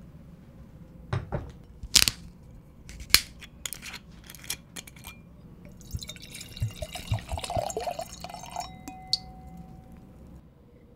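A few sharp glass-and-bottle clicks and knocks, then red wine pouring from a bottle into a stemmed wine glass for about three seconds, starting about six seconds in. A short light glass ping follows near the end.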